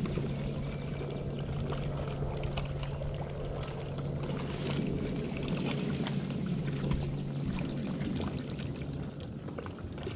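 A boat's motor hums steadily over water sloshing and trickling against the hull. The hum drops out near the end.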